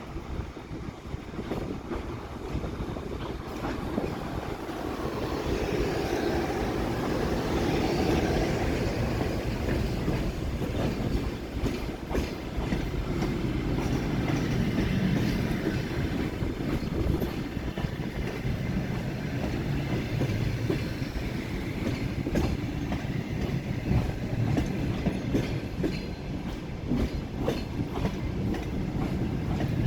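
Passenger train arriving behind an EP2K electric locomotive: the train's noise builds over the first few seconds as it draws near. The carriages then roll by with a steady rumble and a clickety-clack of wheels over the rail joints.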